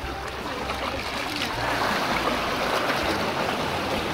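Seawater sloshing and splashing around a snorkeler moving at the surface against a concrete breakwater, a continuous watery rush that grows a little louder partway through.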